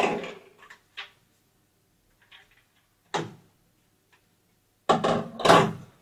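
Plastic vacuum-cleaner extension tubes knocking and clattering as they are handled and set down on a tabletop: a sharp knock at the start, a few light clicks, another knock about three seconds in, and a louder clatter near the end.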